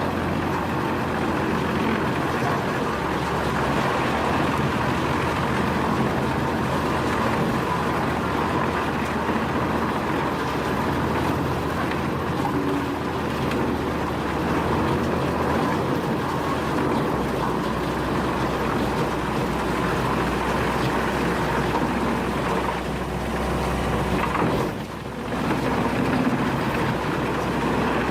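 Heavy wood chipping and shredding machine running steadily: a low engine drone under dense, constant grinding noise, which dips briefly and changes about 25 seconds in.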